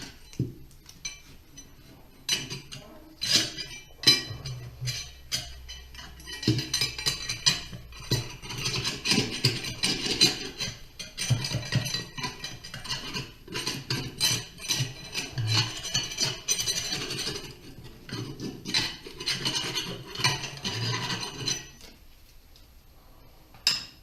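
Hand tools clinking and scraping on metal in a quick, irregular run of sharp taps, busiest through the middle and thinning out near the end.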